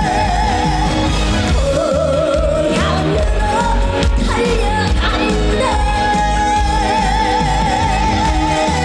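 A woman singing a Korean trot song live over band accompaniment with a heavy bass. She holds long notes with a wide vibrato, sliding up into a new held note about a second and a half in and again near six seconds.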